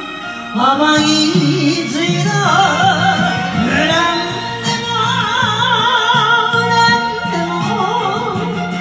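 Enka karaoke backing music with a melody line carried in wide, wavering vibrato over a steady low accompaniment.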